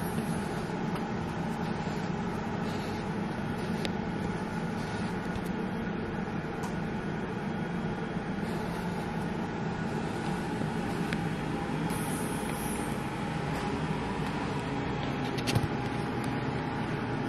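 Steady motor hum of a sequential compression device pump (Covidien leg-compression unit) running at the hospital bed, with a few light clicks, the sharpest near the end.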